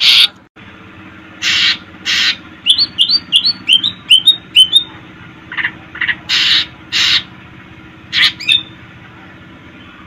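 Green leafbird (cucak ijo) singing: short harsh rasping calls, with a quick run of about nine short rising chirps in the middle.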